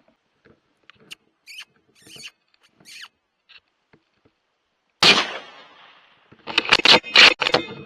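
Faint short high squeaks, then a single rifle shot about five seconds in that rings away over a second. A cluster of loud harsh cries or bursts follows about a second and a half later.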